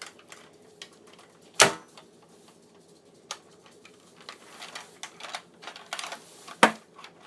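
Plastic clicks and rattles from a toy Nerf gun being handled, with two sharp knocks, one early and one near the end.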